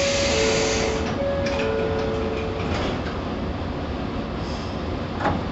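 Inside a 115-series electric train stopped at a station, doors working: a loud air hiss from the pneumatic door gear ends about a second in, and a two-note door chime sounds twice. There is a single knock near the end, and the idling train gives a low steady hum throughout.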